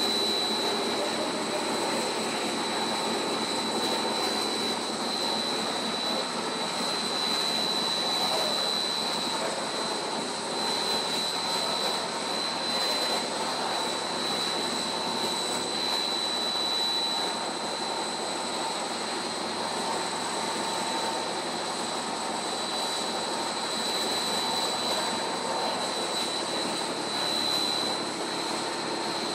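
Monolayer blown film extrusion line running: a steady mechanical drone with a constant high-pitched whine over it.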